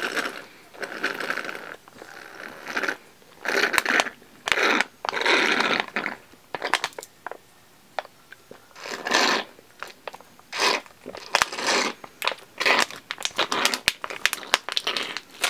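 Foil Capri Sun drink pouch crinkling and crackling as it is squeezed and handled, in bursts of a second or two, with sharp crackles coming thick and fast in the second half.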